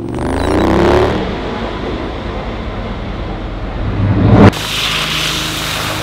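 A layered sound-effects mix of recorded city sounds, with a traffic-like rumble. A swell rises at the start, builds louder and cuts off abruptly about four and a half seconds in, then gives way to a steady rushing hiss.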